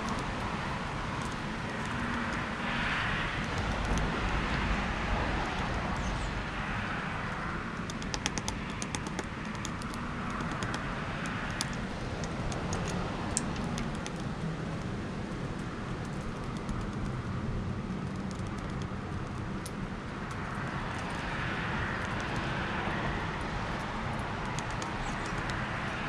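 Downy woodpecker pecking at a wire-caged suet feeder close to the microphone: clusters of quick, light taps, mostly in the middle and again near the end. Under it, a steady hum of road traffic that swells and fades as cars pass.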